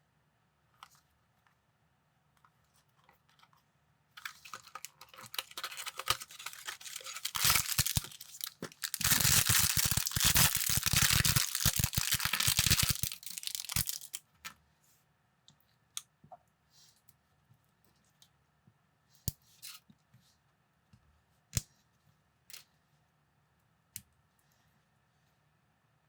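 Packaging torn open and crinkled for about ten seconds, then a scattering of sharp, separate clicks of small plastic pieces being handled.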